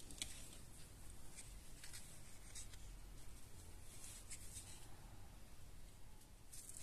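Faint rustling and light scraping of hands handling a small homemade soldering iron and its plastic battery case, over a low steady hum.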